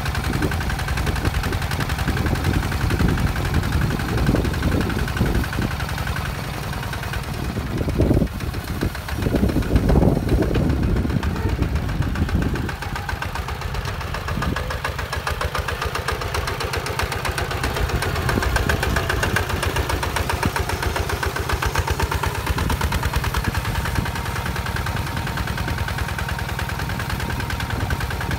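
Hinota HG Gold 155 DI walking tractor's single-cylinder diesel engine chugging steadily under load as it pulls a disc plough through sandy soil, with a louder, rougher stretch about eight to ten seconds in.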